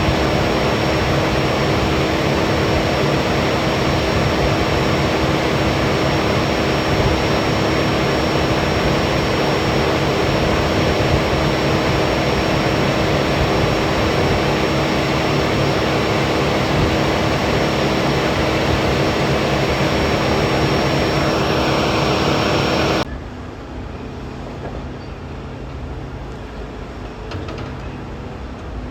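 A heavy engine running steadily, with a constant hum and whine over its noise. Near the end it drops off suddenly to a quieter, steady background rumble.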